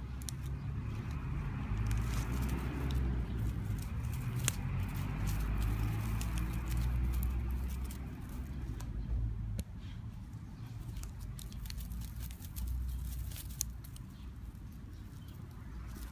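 Low rumble of wind and handling on a handheld microphone, with scattered light clicks and rustles.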